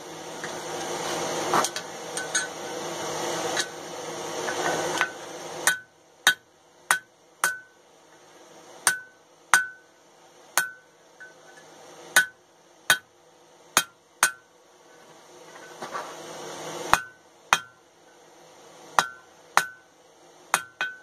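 Blacksmith's hammer striking hot flat steel stock on an anvil, blows about half a second to a second apart in short runs, each with a brief metallic ring. For the first few seconds a rising rushing noise is the loudest sound, and it cuts off suddenly about six seconds in.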